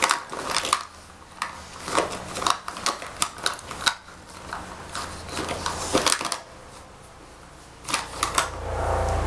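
Plastic makeup containers clicking and knocking together as a child's hands rummage through a makeup bag, a quick irregular run of small clicks. A low steady rumble comes in near the end.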